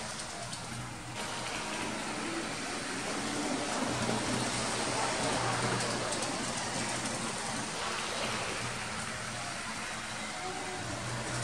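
HO-scale model locomotive running on the layout: its small electric motor whirring with a low hum and its wheels rolling on the track, a steady rush that grows a little louder about four seconds in.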